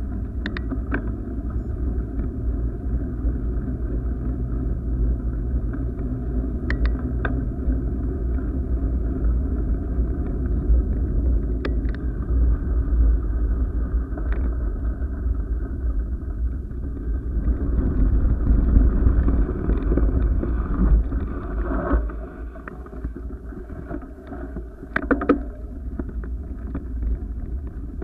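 Steady low rumble of wind buffeting the microphone of a camera moving along a gravel path, with a few sharp clicks and rattles. It gets quieter about three-quarters of the way through.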